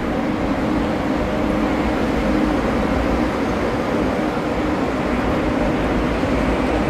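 Aria Express tram, a cable-hauled people mover, running steadily, heard from inside the car: an even rumble with a low hum and no change in level.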